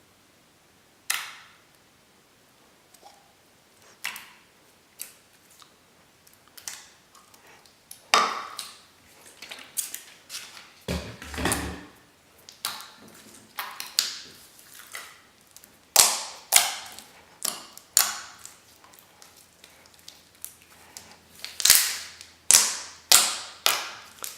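Glossy slime being pressed and stretched by hand, giving off irregular sharp pops and clicks as air pockets burst. They are sparse at first and come thicker and louder in the second half.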